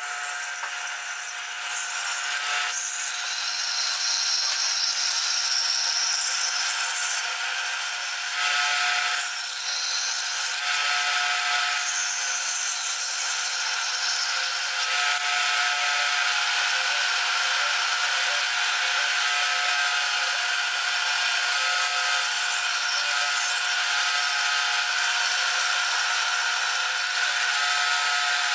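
Vertical band saw running, its blade cutting through a thin aluminum plate as it is fed by hand: a steady hiss with a constant whine.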